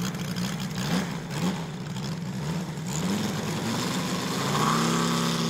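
Engine of a large RC scale model Let Z-37 Čmelák agricultural plane running at low throttle as it taxis, its speed rising and falling in short blips, then opening up to a steady higher pitch about four and a half seconds in, as for the takeoff run.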